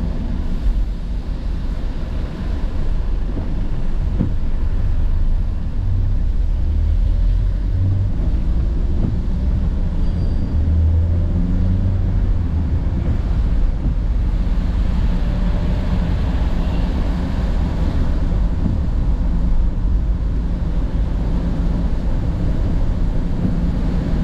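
Car driving on a wet road in rain: a steady low rumble of engine and road noise.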